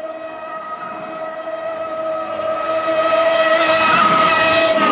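A fast car's engine at a steady high pitch, growing louder as it approaches and then dropping in pitch as it speeds past near the end.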